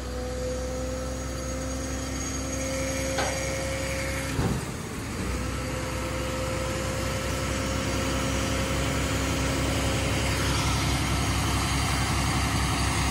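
Diesel engine of a Peterbilt front-load garbage truck running, a deep steady throb with a steady whine over it, slowly growing louder; a couple of brief knocks about three and four and a half seconds in.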